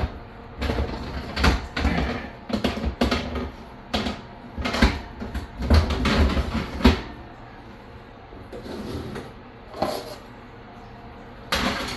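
Metal oven rack being pulled out, moved to another position and slid back along its runners: a run of clanks, scrapes and rattles, then a pause and two more knocks, the louder one near the end.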